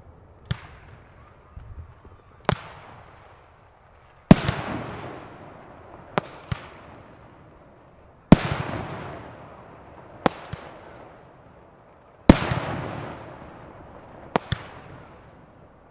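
Aerial fireworks bursting overhead: a loud bang about every four seconds, each fading away over a couple of seconds, with smaller sharp reports in between.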